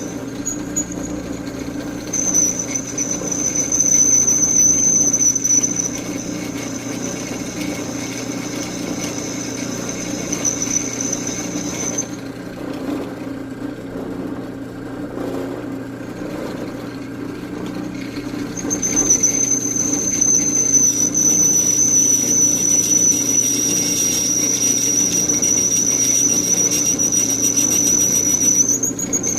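Electric drill running steadily as its bit cuts slowly, under light feed pressure, into a hard steel chainsaw bar. The bit in the steel gives a thin, high, steady squeal that stops for a few seconds midway, then comes back until just before the end.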